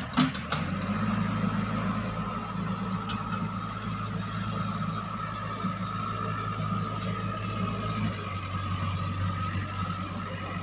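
JCB 3DX backhoe loader's diesel engine running steadily under work, with a steady whine above the engine drone. A couple of sharp knocks come right at the start.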